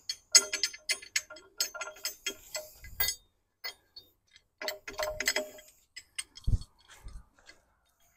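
Hand tools and metal parts clicking and clinking in quick runs, one for the first three seconds and another around five seconds in, with a short dull thump after six seconds.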